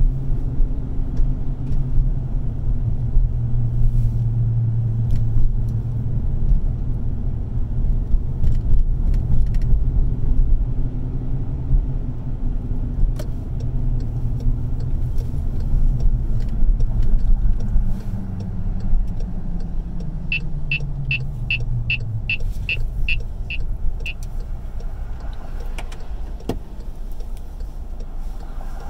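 Car engine and tyre rumble heard from inside the cabin, its pitch falling as the car slows to a stop. About twenty seconds in comes a quick, even run of about ten sharp ticks over four seconds.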